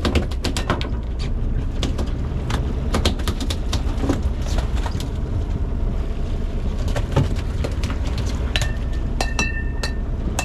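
Boat engine running steadily, with a run of sharp, irregular knocks and clatters on top, thickest in the first second, and a few short high tones near the end.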